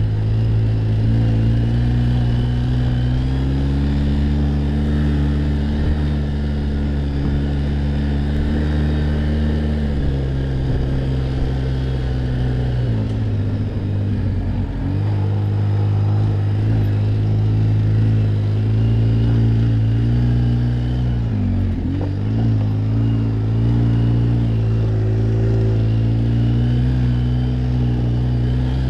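ATV engine running while riding, its pitch rising and falling with the throttle. It picks up a few seconds in, eases off about twelve seconds in, climbs back, and dips briefly about twenty-two seconds in before picking up again.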